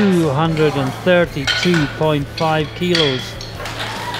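A person's voice speaking in short phrases over a steady low hum, stopping about three seconds in.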